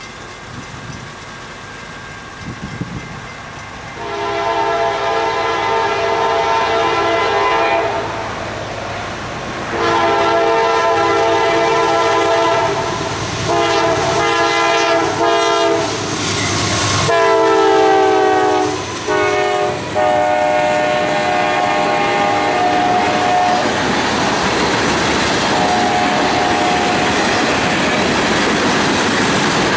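Freight locomotive's multi-chime air horn sounding the grade-crossing signal: two long blasts, a short one and a final long one, its pitch dropping as the locomotive passes. The final blast is followed by the steady rumble and clatter of the train's cars rolling by.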